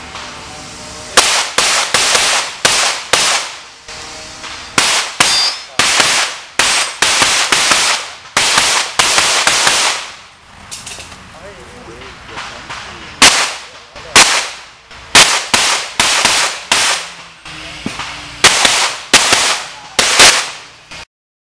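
Handgun shots fired rapidly in quick pairs and strings during a practical-shooting stage run, many shots in all, with a pause of a few seconds about halfway through before the shooting resumes. Each shot is a sharp, loud crack.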